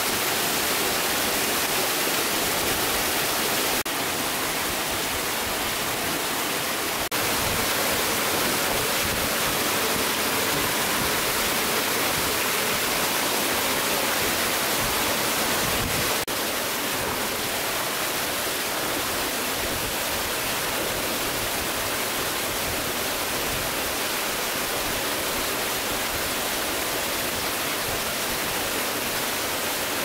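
Waterfall rushing in a steady, even roar of falling water, with small abrupt shifts in level about 4, 7 and 16 seconds in.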